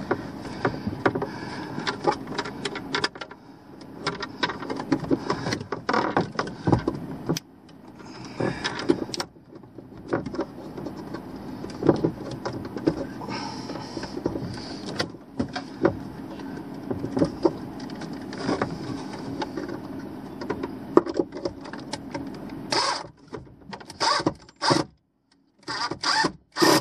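Ridgid cordless driver running under load as it drives a mounting screw into wood, with a dense rattling clatter; it runs almost without pause, then in short bursts near the end as the screw seats.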